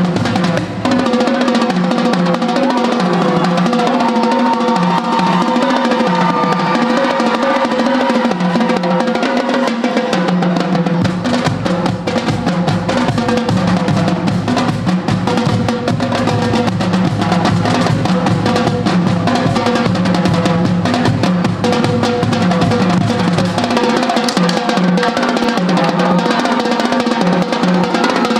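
Marching drumline playing a loud, fast cadence in a face-off: rapid snare strokes over bass drums.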